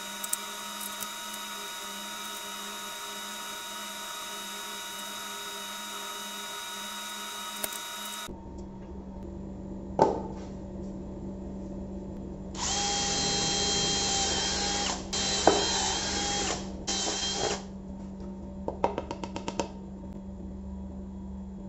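Cordless drill running in three bursts with a steady whine, the first about two and a half seconds long and the other two shorter. A single knock comes a couple of seconds before the drilling, and a quick run of light clicks follows it. A steady hum fills the first eight seconds.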